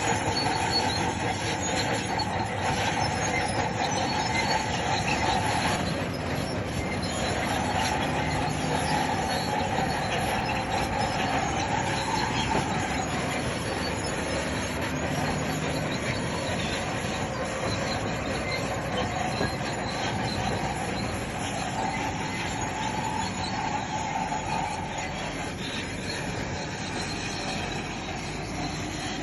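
Crawler bulldozer working, its steel tracks giving a continuous squeal that wavers in pitch over the running machine.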